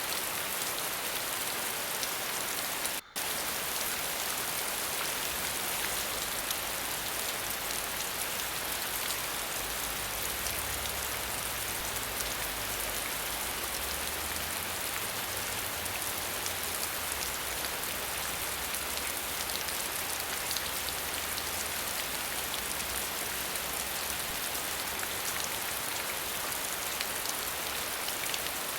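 Waterfall: a steady hiss of falling and splashing water with a fine patter of droplets, and a faint low rumble beneath. It drops out for an instant about three seconds in.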